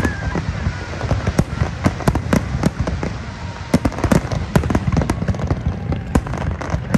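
Aerial fireworks shells bursting in quick succession: a dense, irregular string of sharp bangs, several a second, over a steady low rumble.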